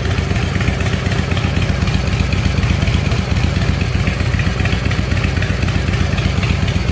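Motorcycle engine running steadily with an even low firing pulse, just after a cold start without choke on a freshly rebuilt S&S Super E carburetor: it keeps running off the choke, so the rebuild has worked.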